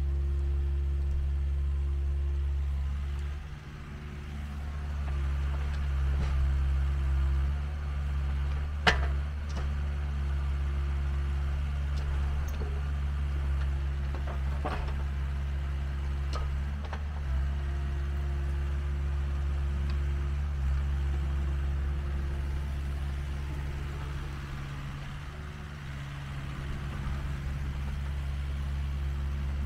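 Compact excavator's diesel engine running steadily, easing off briefly twice as the hydraulics change load. A sharp clank about nine seconds in, and a few lighter knocks after it.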